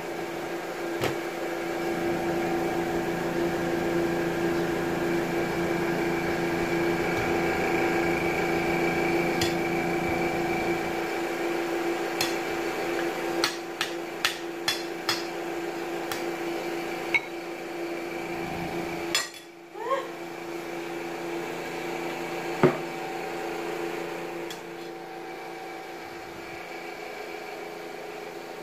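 Steady hum of a running appliance with several held tones. A run of light clicks comes about halfway through, then a single sharper knock a little later.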